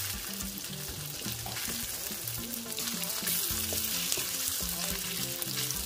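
Chicken pieces sizzling steadily as they fry in hot oil in a wok, with a wooden spatula stirring them around the pan.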